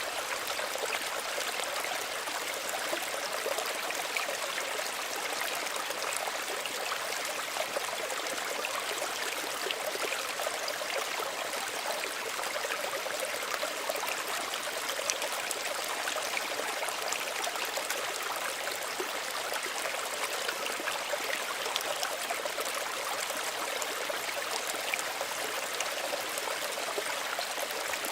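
Small stream running steadily, water trickling and splashing over stones, a bright burbling without pauses.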